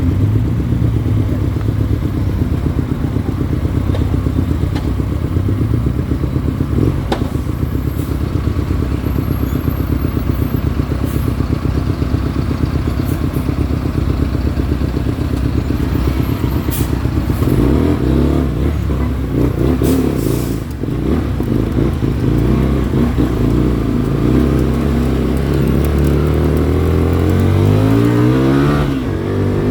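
Hyosung Comet GT250 V-twin motorcycle engine running on the move, with wind noise on the microphone. The engine note holds steady for the first half, then rises and falls as the revs change in the second half.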